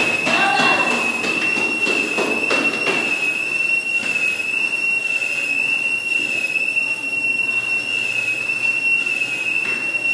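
Breathing-apparatus low-air warning whistle sounding continuously, one steady high-pitched tone that wavers slightly: the sign that the air cylinder is nearly empty.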